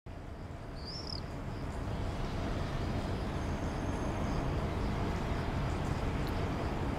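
E.405 electric locomotive with a freight train of empty car-carrier wagons approaching, a steady rumble growing slowly louder. A brief high chirp about a second in.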